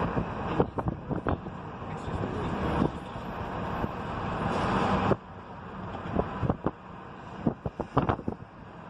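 Outdoor wind and vehicle noise, with wind buffeting the microphone and scattered sharp clicks and knocks. The noise builds up and then drops off abruptly about five seconds in.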